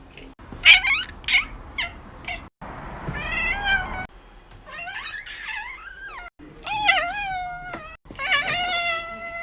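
A cat meowing over and over: a few short meows, then four long, drawn-out meows of about a second each that waver and bend in pitch.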